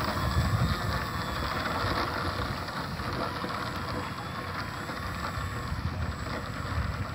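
Sunnysky 2820 brushless electric motor and APC 10x7 propeller of an RC model jet whining at low throttle as it taxis, its pitch wavering with the throttle. Wind rumbles heavily on the microphone.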